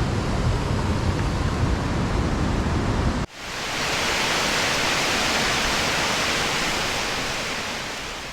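Steady rush of waterfall water, deep and rumbling at first. About three seconds in it cuts suddenly to a brighter hiss, which slowly fades out.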